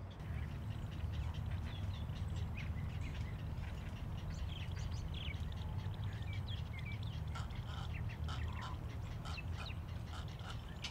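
Birds calling at an egret and heron nesting rookery: many short squawks and chirps, scattered and overlapping, over a steady low rumble.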